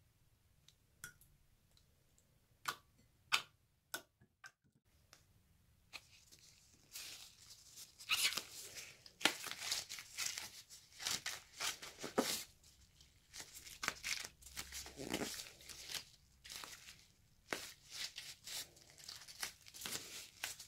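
A few faint sharp clicks of stretched slime, then, from about six seconds in, a soft rubbery hand-shaped stress toy being squeezed and kneaded: dense crackling and squelching with many quick sharp pops.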